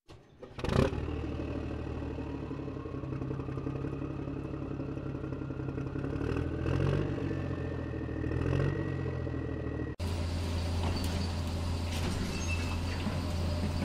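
A steady engine-like running sound with a whine that slowly rises in pitch and a few thumps. About ten seconds in it cuts off suddenly and gives way to the steady hum and clicking of an electric RC model excavator working.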